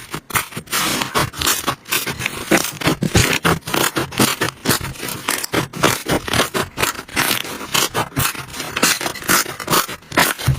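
Slime being handled and squeezed, a dense, irregular run of crackling and scraping clicks.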